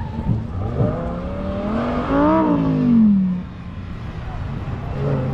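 A sports car driven on a track, its engine revving as it passes: the pitch climbs for about a second, peaks midway and then falls away.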